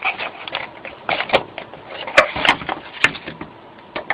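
Phone packaging being handled during an unboxing: a run of irregular rustles and scrapes, with three sharp clicks between about two and three seconds in.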